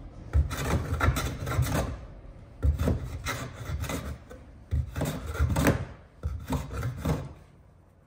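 Record 020C compass plane shaving a concave curve in a wooden workpiece: about four rasping strokes of the blade across the wood, each a second or so long, stopping shortly before the end.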